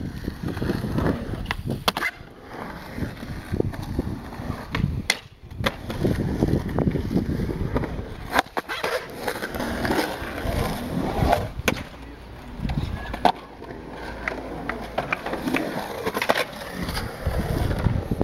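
Skateboard wheels rolling and carving over a concrete bowl, the rolling swelling and fading as the rider pumps through the transitions. Several sharp clacks from the board are spread through it.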